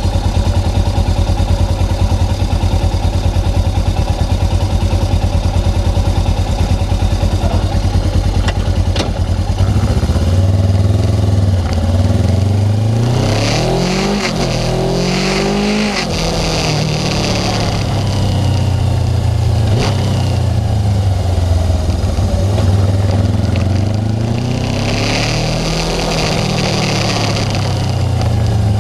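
Suzuki GS500 motorcycle's air-cooled parallel-twin engine running steadily, then revving up and back down twice, about halfway through and again near the end.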